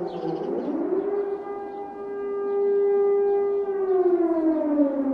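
Civil defense siren wailing: its pitch rises about half a second in, holds steady for a few seconds, then starts to fall again near the end.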